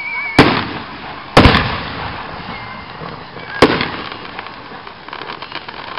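Aerial fireworks bursting: a loud bang about half a second in, two close together at about a second and a half, and another a little past three and a half seconds, each trailing off. Faint crackling follows near the end.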